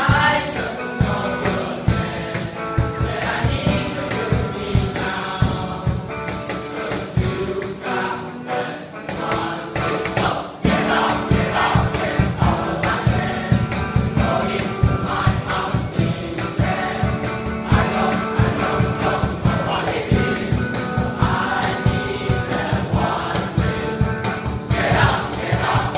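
A group of teenage boys singing a pop song together in chorus over a steady percussion beat from a cajon, with an electric guitar accompanying. The beat gets fuller and a little louder about ten seconds in.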